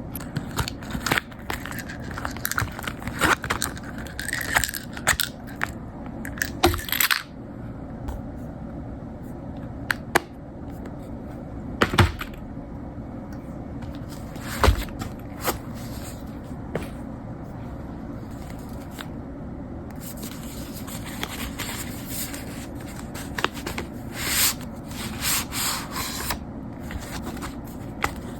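Close-up handling noise: irregular rustling, scraping and sharp taps of paper and small objects being moved by hand, over a steady hiss.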